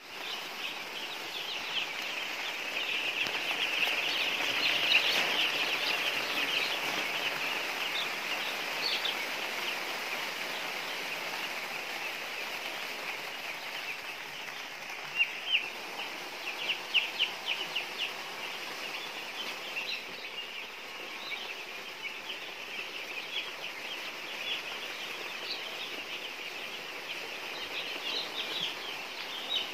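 A large flock of young chicks peeping all at once: a dense, high-pitched chorus of short cheeps, loudest a few seconds in, with a few louder single peeps standing out around the middle.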